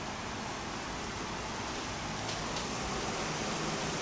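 Heavy rain falling steadily in a night thunderstorm, an even hiss of rain on surfaces, with a couple of faint sharp drip ticks about halfway through.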